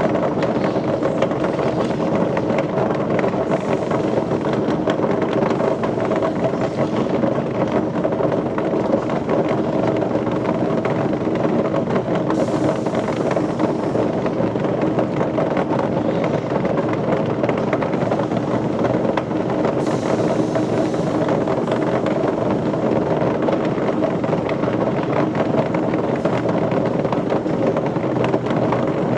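Heavy machinery running steadily, a constant mechanical din with a hum of several fixed tones that does not change.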